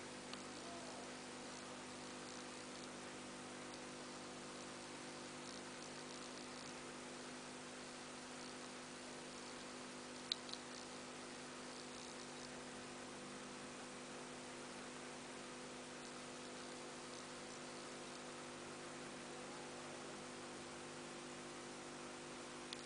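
Faint steady mains-type electrical hum over a light hiss, with one sharp click about ten seconds in.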